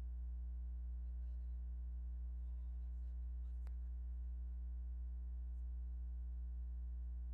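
Steady low electrical mains hum with a buzz of evenly spaced overtones, unchanging throughout, and a single faint click about three and a half seconds in.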